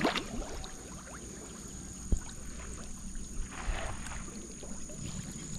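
Water sloshing and trickling, with a single short knock about two seconds in.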